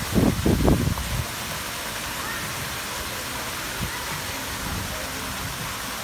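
Steady rushing hiss of water falling from a swimming pool's artificial rock waterfall, mixed with light splashing from swimmers kicking. Some low rumbling in the first second, then the water sound runs on evenly.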